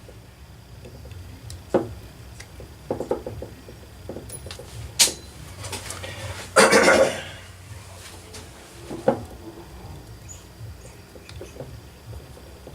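Scattered clicks and knocks of small metal engine parts and hand tools being handled on a workbench during reassembly of a model four-stroke glow engine. The loudest is a short scraping rattle about halfway through.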